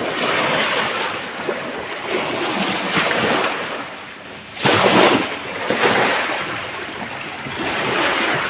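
Sea waves washing in, mixed with wind buffeting the microphone; the rush swells and fades, with its loudest surge about halfway through.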